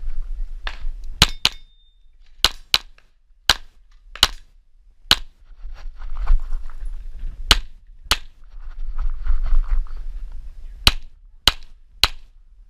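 Tanfoglio Stock II 9×19 mm pistol being fired about thirteen times in quick pairs and single shots. There is a low rumble of movement and wind on the camera between the strings, about six to ten seconds in.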